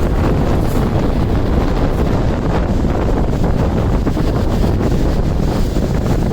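Strong wind buffeting the microphone: a loud, steady low rumble of wind noise.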